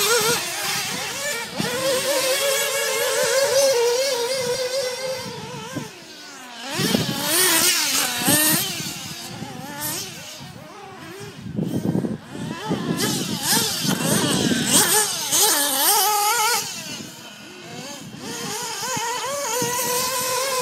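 Several radio-controlled off-road buggies racing, their small engines whining high and rising and falling in pitch as they rev and back off through the track. The sound swells and fades as the cars pass near and away.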